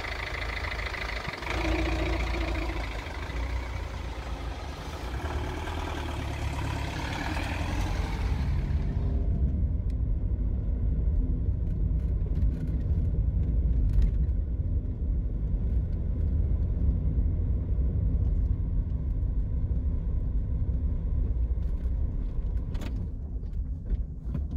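Mercedes-Benz A-Class car driving, heard from inside the cabin: a steady low engine and road rumble with a few light clicks and knocks. A higher hissing, whirring sound rides over it for the first eight seconds or so, then drops away.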